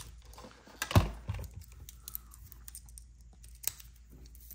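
Small plastic clicks and taps from handling a toy RC car's pistol-grip transmitter and its batteries, with one louder knock about a second in.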